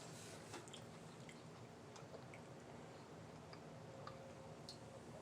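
Faint chewing, with scattered small mouth clicks over quiet room tone.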